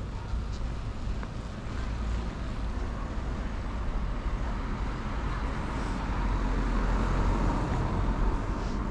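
City street traffic noise: cars running on the road, a steady hum with low rumble that grows louder a few seconds before the end as a car passes.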